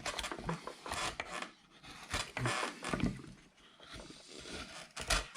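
Large number 5 carving gouge shaving wood off a hand-carved figure, a series of short, irregular scraping cuts.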